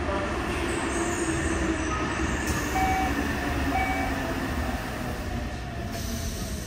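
Sliding doors of a Yokohama Municipal Subway 4000-series car closing, with the door chime sounding a few short tones about two to four seconds in, over the steady hum of the stopped train.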